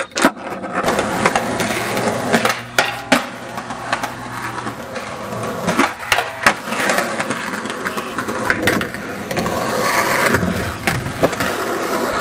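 Skateboard wheels rolling over pavement in a steady grinding rumble, with repeated sharp clacks and knocks from the board.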